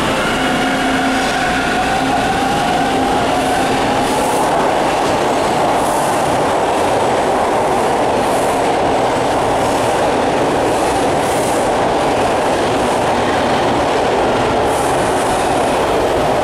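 TTC T-1 subway train running along the platform, its motor whine rising over the first few seconds as it picks up speed, then a steady rumble of wheels on rail with occasional clacks.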